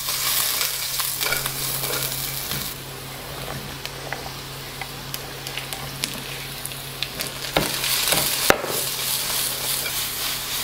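Carrots sizzling in hot oil in a wok, with light clicks of stirring. About three quarters of the way through, chopped onion, pepper and celery are slid off a wooden board into the wok with a few sharp knocks, and the sizzling grows louder.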